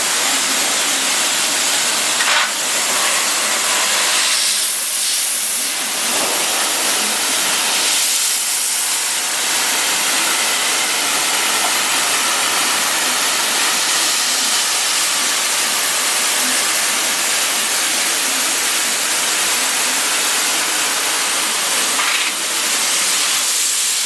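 Dolphin commercial conveyor dishwasher running, its wash jets spraying water through the chamber: a loud, steady hiss.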